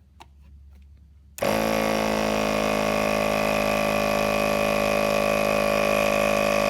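ARB single 12-volt electric air compressor kicking on about a second and a half in and running steadily at an even pitch, pumping air to inflate a tyre.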